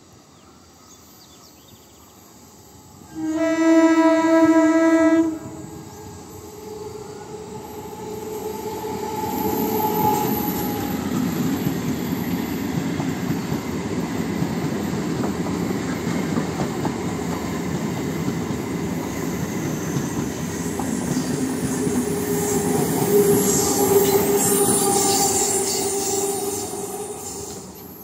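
Electric multiple unit (EMU) suburban train: one long horn blast of about two seconds a few seconds in, then the train running past, its wheels rumbling on the rails, growing louder, staying loud, and fading near the end.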